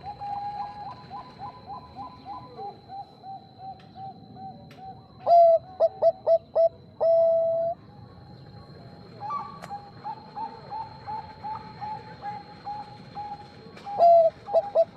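Zebra doves (perkutut bangkok) cooing: a quick run of soft repeated coos, then about five seconds in a loud phrase of several short staccato notes ending in a long held coo. More soft coos follow, and another loud staccato phrase starts near the end.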